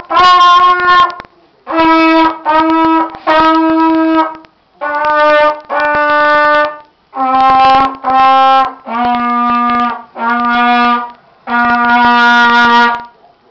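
A child's trumpet playing a slow beginner's exercise line of about eleven separate held notes, the pitch stepping down overall and ending on a longer low note.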